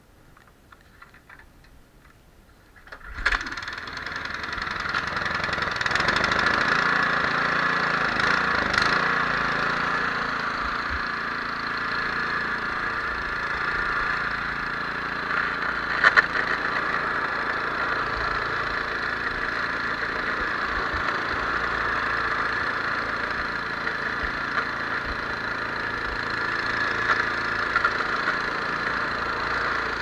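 Snowblower engine starting suddenly about three seconds in, then running steadily as the machine clears deep, wet snow, with a single sharp knock partway through.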